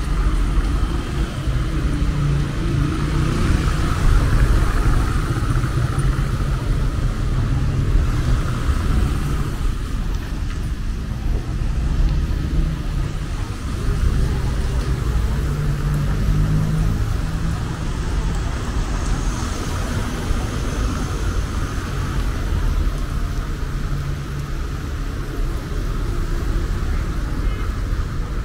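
Busy town street ambience: a steady rumble of passing car traffic with people's voices mixed in.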